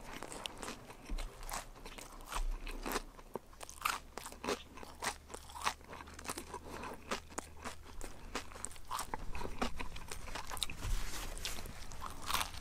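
Someone chewing a mouthful of cornflake-crusted fried fish sandwich: a run of irregular, crisp crunches as the coating breaks between the teeth.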